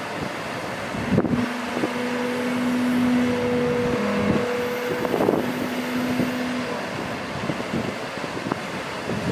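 A Ford F750 bucket truck's Cummins 6.7L ISB diesel running with the PTO driving the Altec boom hydraulics while the boom moves. A steady hum holds from about a second in for some five seconds, with a couple of short knocks. Wind noise on the microphone.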